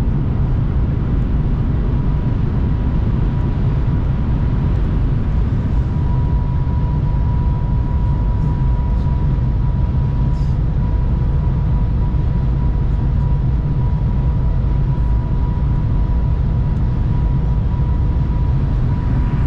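Cabin noise of the Shanghai Maglev train cruising at about 300 km/h: a steady, loud rumble, with a faint thin whine held through it.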